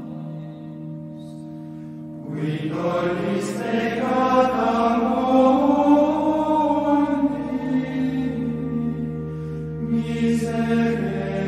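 Chanted singing over a steady low drone. The voices come in about two seconds in, louder, and sing a slow melody that rises and falls.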